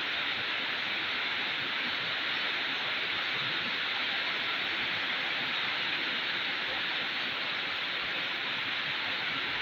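Steady rainfall, an even hiss that holds level throughout.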